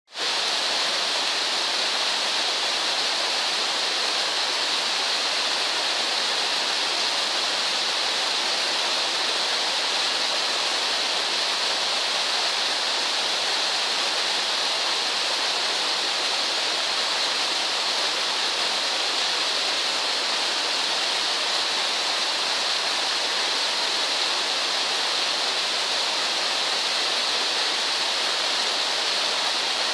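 Water rushing steadily down a small rocky waterfall, an even, unbroken noise.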